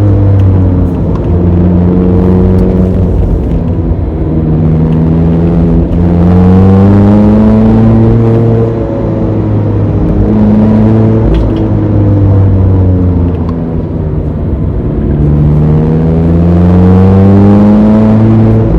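Mazda Roadster ND (MX-5) inline-four engine under load on a steep climb, its revs rising and falling again and again as the car accelerates and eases off, with long pulls upward in pitch about a third of the way in and near the end.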